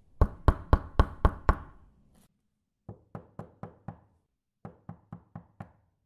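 Knocking on a door: a run of six loud, quick knocks, then after a pause two runs of five lighter knocks, about four knocks a second.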